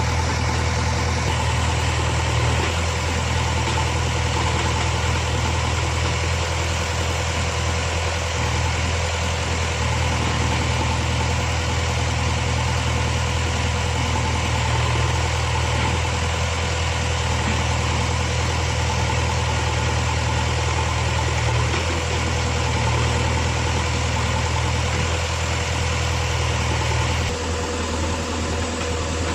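Heavy diesel engine of earthmoving equipment running steadily at low speed with an even drone; its note shifts slightly near the end.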